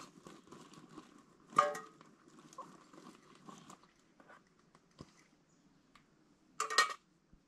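Camp cookware and utensils clinking and tapping, with a louder clatter about a second and a half in and another near the end, over a faint steady hum.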